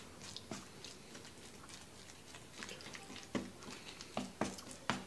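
Close-up chewing of mashed potato and corn: small wet mouth clicks and smacks, with light taps of wooden chopsticks against the dishes. A few sharper clicks come in the second half.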